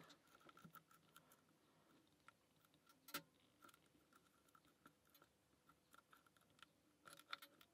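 Faint, scattered small clicks of a lock pick working the pin stacks of a pin-tumbler challenge lock under a tension tool, with one sharper click about three seconds in and a few more near the end.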